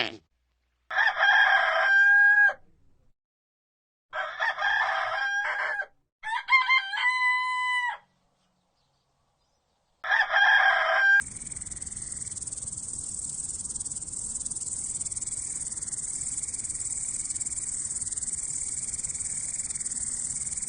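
A rooster crowing four times, each crow lasting one to two seconds, with short gaps between them. After the last crow comes a steady high-pitched hiss that runs on to the end.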